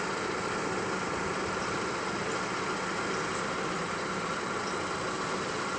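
Car engine running steadily, heard from inside the cabin: an even hum with a low drone and road or air noise.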